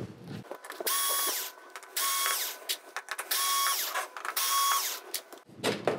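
Small electric screwdriver running in four short bursts, each lasting about half a second, with the motor whining up to speed each time. It is backing out the screws on a flat-screen TV's metal T-Con cover plate.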